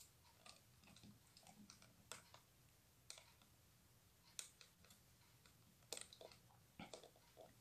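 Faint clicks and scrapes of a transistor's leads being pushed into the plastic hFE test socket of a DT-830D+ digital multimeter: about five short clicks, a second or so apart, over near silence.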